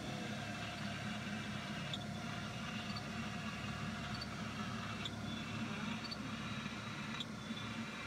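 Steady machinery hum inside a submersible's cabin, with a short tick every two to three seconds.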